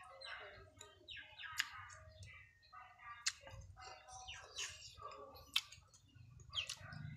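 Small birds chirping repeatedly in short calls, faint. A few sharp clicks of a spoon against a ceramic bowl are the loudest sounds.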